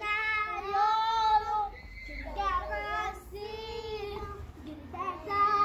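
Young child singing in a high voice, several long drawn-out phrases with short breaks between them.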